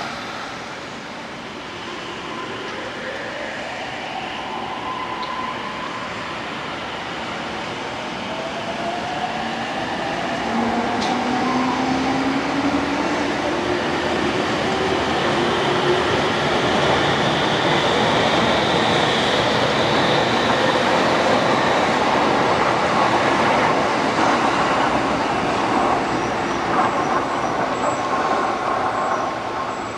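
JR Yamanote Line electric train pulling out of the station. Its traction motors give a whine that rises in pitch as it picks up speed, and the running noise on the track grows louder through the middle, then drops away near the end.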